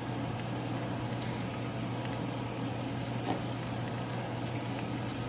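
Eggs and minced chicken cooking in butter in a cast-iron skillet, sizzling and bubbling steadily with a fine crackle. A low steady hum runs underneath.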